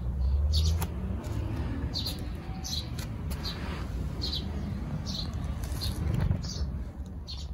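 Small birds chirping repeatedly in short, high notes, over a low rumble that is loudest in the first second.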